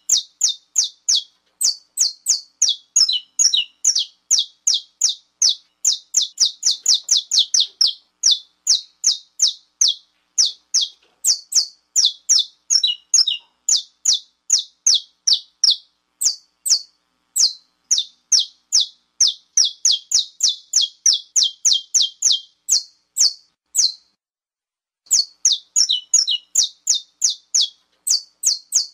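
Saffron finch (canário-da-terra) giving its 'estalo' call: a long run of sharp, high, downward-sweeping chip notes, about three to four a second, with a pause of about a second near the end. It is the excited call played to fire up male saffron finches.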